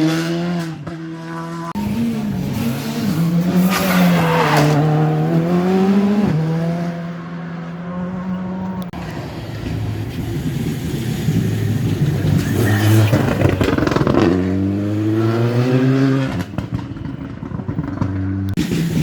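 Rally car engine at full throttle on a stage, its note climbing and falling over and over, with abrupt steps in pitch like quick gear changes.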